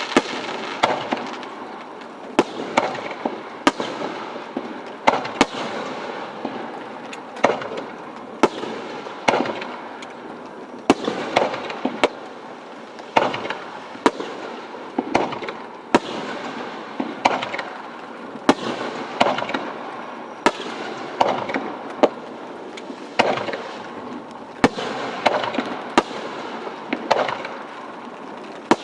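Aerial firework shells bursting in quick succession, a sharp bang about every second or two, each followed by a rolling echo.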